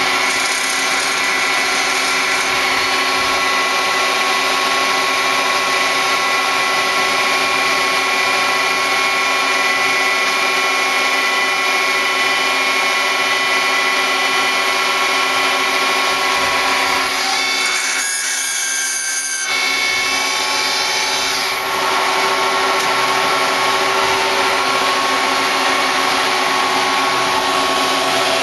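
Star SR20R Swiss-type CNC lathe running a part program: a steady machine whine made of several held tones. About 18 seconds in the lower part of the sound drops away for a second or two and a higher whine shows, then steady running resumes.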